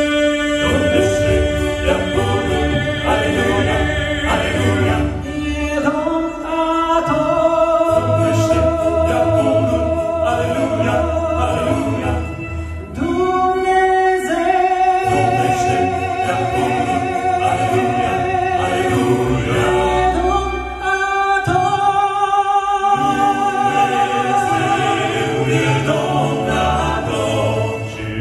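Male vocal quartet singing in close harmony into microphones: long held chords that move to a new chord every second or two, with a low bass part underneath.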